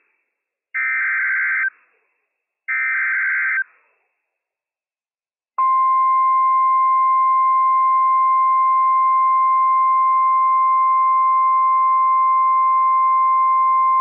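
Emergency Alert System SAME header data bursts: two harsh, warbling digital screeches about a second each, a second apart, the last repeats of the header that opens a severe thunderstorm warning. After a short silence, the NOAA Weather Radio 1050 Hz alert tone sounds steady for about eight seconds and cuts off abruptly.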